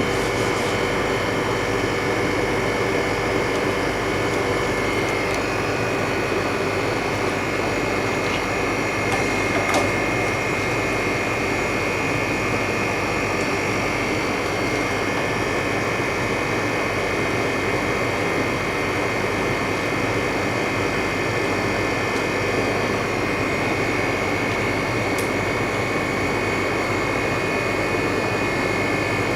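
LCD freezer machine running steadily: a constant fan-like whir with a steady high whine over it and a faint tick about ten seconds in.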